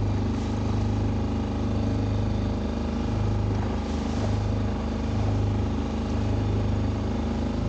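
Motorboat engine running steadily while under way, a constant low drone.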